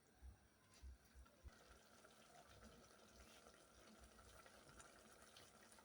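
Very faint simmering in a cooking pot: chopped bananas cooking in a little oil and water, with small scattered crackles and ticks over a soft hiss.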